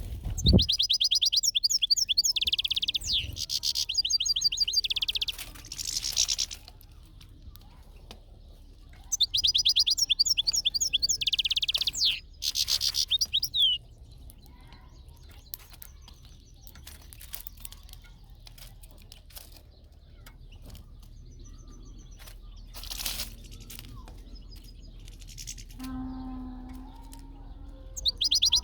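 European goldfinch singing in rapid twittering phrases. There is a long run of song through the first six seconds, another from about nine to fourteen seconds in, and it starts again at the very end, with quieter gaps between.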